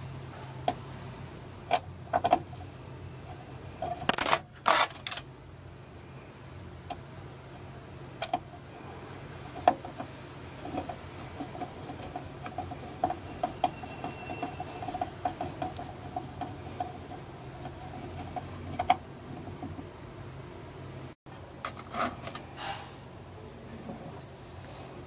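Screwdriver driving screws into a stereo receiver's metal chassis and circuit board: scattered small metallic clicks and taps, a few louder clatters, and runs of quick ticks, over a low steady hum.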